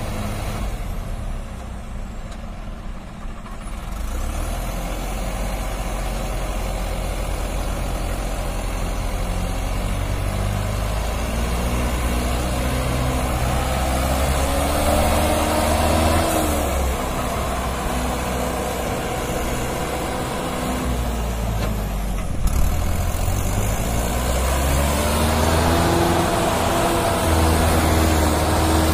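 Mahindra 595 tractor's diesel engine working hard under a heavy load, hauling a loaded trolley up a sandy slope with its front wheels lifting. The engine note rises and falls as it labours, climbing in pitch twice.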